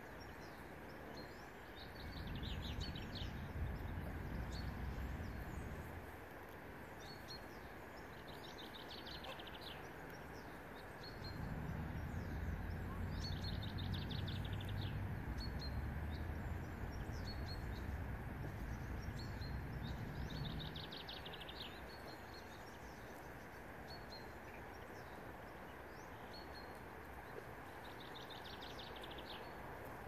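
A small songbird singing a short, fast trilled phrase about five times, several seconds apart, with single high chirps in between. Beneath it a low rumble swells twice, once early and again for about ten seconds in the middle.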